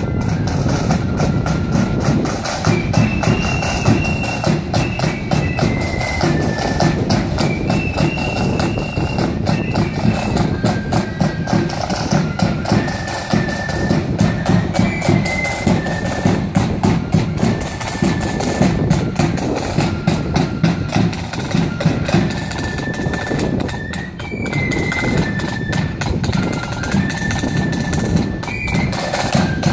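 Marching flute band playing a march: a high flute melody stepping from note to note over snare drums and a bass drum keeping a steady beat.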